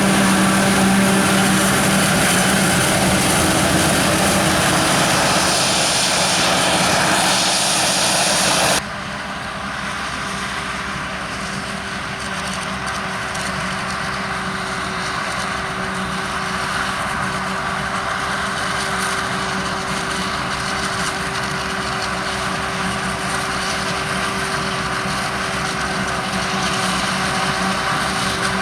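Heavy farm machinery running steadily in the field during maize chopping, from the forage harvester and carting tractors. About nine seconds in the sound cuts abruptly to a quieter, steady engine note with a constant hum.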